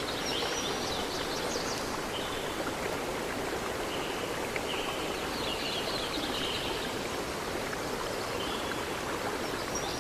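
Steady rushing water with birds chirping over it in short spells every few seconds.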